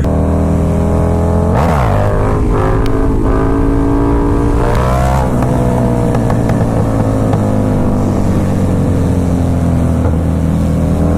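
Motorcycle engine running steadily. About a second and a half in there is a quick dip and recovery in pitch, around five seconds a short rise and fall, and after that the note sinks slowly.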